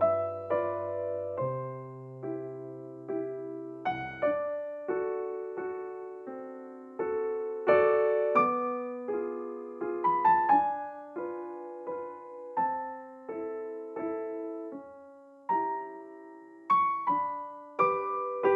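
Gentle background piano music: a slow melody of struck notes that ring and fade, over sustained low bass notes.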